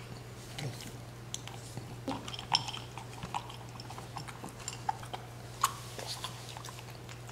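French bulldog eating from a ceramic bowl: irregular small clicks and clinks as her teeth and the food knock against the bowl, with chewing and licking in between. The sharpest clicks come about two and a half and five and a half seconds in.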